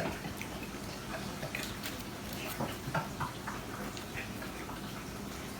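Quiet eating sounds: scattered soft clicks of chewing and mouth noises while food is eaten.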